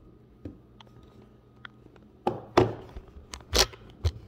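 Handling noise from a phone being moved and set in place: a handful of sudden knocks and thuds with some rubbing, mostly in the second half.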